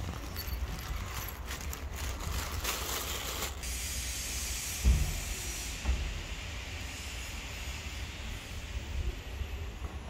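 Street traffic noise: a steady low rumble with a hiss that swells in the middle, and two dull thumps about five and six seconds in.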